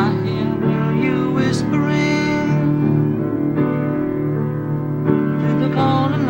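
Music: a song with piano and other instruments, with a wavering sung melody over sustained chords. No firework bangs stand out.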